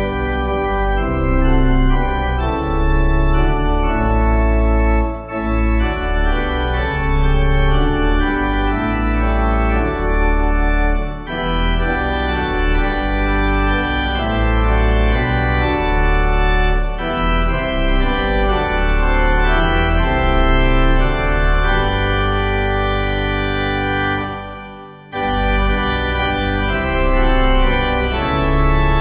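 Church organ playing a hymn tune in held chords over a bass line, with short breaks between phrases. One stanza ends about 25 seconds in, and after a brief pause the next stanza begins.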